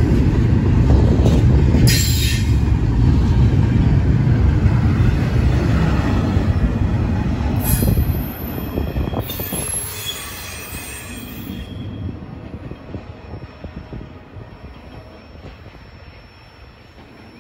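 Double-stack intermodal freight cars roll past close by with a heavy rumble of wheels on rail, broken by brief high wheel squeals. About eight seconds in the sound drops off, then fades steadily as the train moves away.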